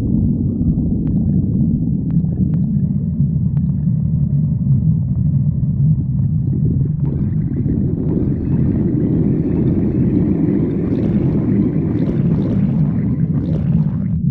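A badger's stomach growling: a continuous low rumble, with a brighter, hissier layer joining it about halfway through and cutting off abruptly just before the end.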